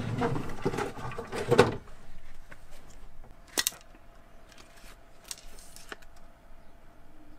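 Rummaging in a wooden desk drawer, with objects rustling and clattering for the first couple of seconds, then a few sharp clicks as an Mtech knife is handled in its sheath.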